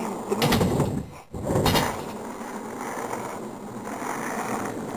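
Skateboard wheels rolling over rough asphalt: a steady, gritty rolling noise, with two louder surges in the first two seconds and a brief dip between them.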